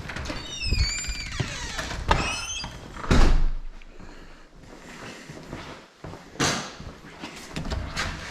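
Two high squeaks with wavering pitch in the first few seconds, then a loud thud about three seconds in and another about six and a half seconds in: something being moved and set down.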